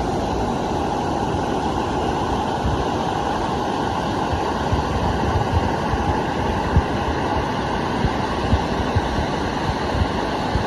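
Steady rush of a waterfall's falling water. Low thumps hit the microphone now and then, more often from about five seconds in.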